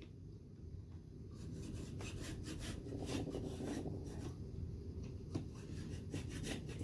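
Screen spline roller rolling and rubbing as it presses the spline and mesh into the screen frame's channel, starting at a corner: faint, irregular scraping strokes that pick up about a second in.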